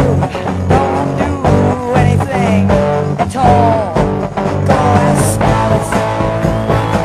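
Psychedelic rock music: band playing with electric guitar lines bending in pitch over bass and drums.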